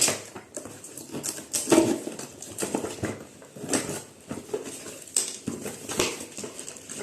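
Irregular knocks and clacks of hard plastic appliance parts being handled and unpacked, with rustling between them.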